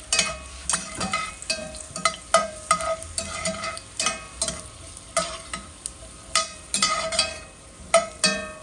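Fresh garlic and whole pimento seeds (allspice) sizzling in hot oil in a metal pot, while a utensil stirs them and repeatedly clinks and scrapes against the pot, each knock leaving a short metallic ring. The oil is being flavoured before the fish goes in.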